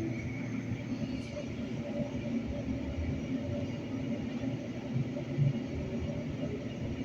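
Edmonton LRT light-rail car running: a steady low rumble with a faint steady hum over it, heard from inside the car.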